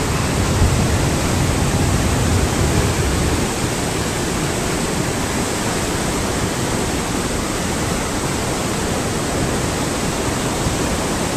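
The Beas River in flash flood rushing past, a steady, even wash of water noise, with a heavier low rumble in the first few seconds.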